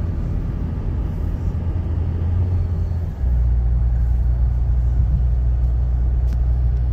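Low, steady rumble of a car driving, heard from inside the cabin. About three seconds in it steps up louder and deeper.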